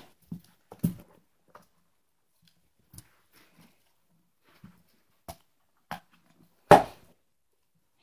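Handling noises from a small black case being opened and handled by hand on a carpet: a few scattered knocks and clicks, the loudest one near the end.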